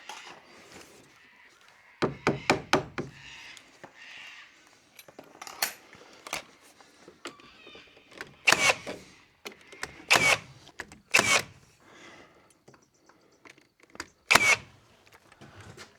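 Scattered sharp knocks and clacks of timber trim pieces and tools being handled: a quick run of about four knocks a couple of seconds in, then single louder ones spaced a second or more apart, with faint scraping between.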